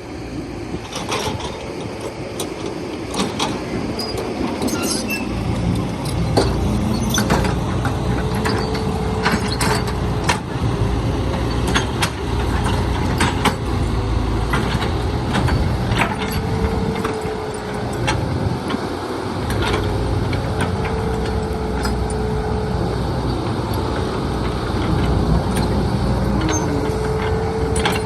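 Heavy vehicle diesel engine running, getting louder about six seconds in, with a wavering whine and many scattered metallic clanks and knocks.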